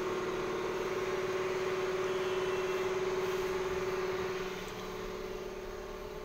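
Steady mechanical hum: one constant droning tone over a hiss, easing slightly about four and a half seconds in.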